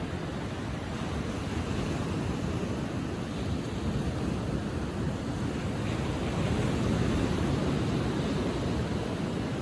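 Ocean waves breaking and washing up the beach at low tide, a steady rush that swells louder about six seconds in, with some wind on the microphone.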